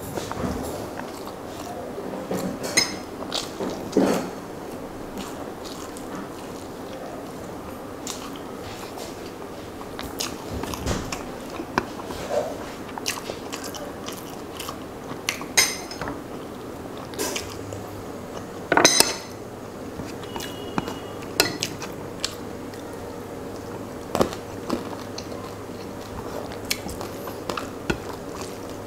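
Close-up eating sounds of rice and curry eaten by hand: wet chewing and lip smacks, with fingers squishing and mixing rice on a steel plate. Irregular sharp clicks and clinks run through it.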